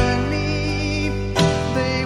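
Background music: a country-style song with guitar, holding long sustained notes.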